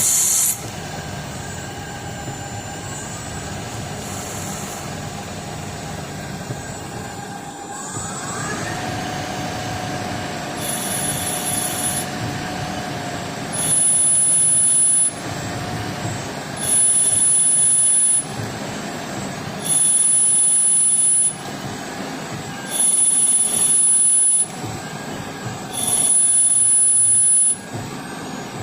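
DIY CNC lathe running while turning brass. About eight seconds in a tone rises in pitch and then holds steady. From about halfway, a loud high-pitched whine comes in bursts of about a second and a half, five times, roughly every three seconds.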